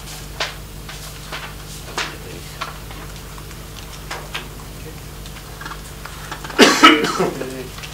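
Sparse light clicks from a laptop keyboard being typed on, in a small meeting room. About six and a half seconds in comes a brief, loud burst of a person's voice.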